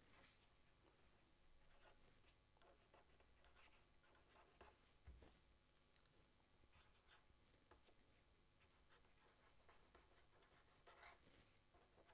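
Very faint scratching and squeaking of a felt-tip marker writing on paper, in short irregular strokes, the strongest one near the end.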